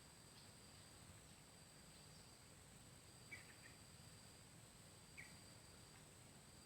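Near silence outdoors: a faint, steady high-pitched insect drone, with two brief faint chirps about three and five seconds in.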